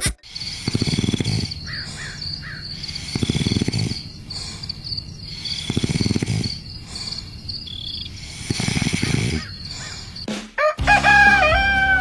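Snoring, one slow rasping snore about every two and a half seconds, over steady chirping crickets. Near the end a rooster crows loudly, a morning cue.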